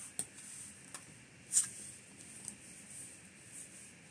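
Tarot cards being handled and laid down on a wooden table: a few soft taps and light card-on-card clicks, the loudest about a second and a half in.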